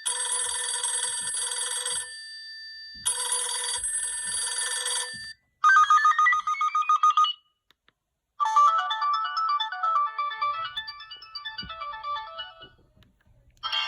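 Jitterbug flip phone's small speaker playing a series of ringtone previews. First comes an old-school telephone ring in two bursts, then a pulsing tone that rises in pitch, then after a short pause a tune of quick stepping notes, with another ringtone starting at the very end.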